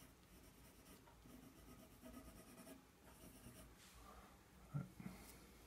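Faint scratching of a coloured pencil on paper, with a soft knock about three-quarters of the way through.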